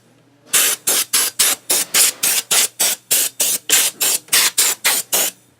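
Compressed air from an air compressor's blow gun fired in rapid short blasts at a computer's insides, about four or five hissing puffs a second, over a faint steady low hum.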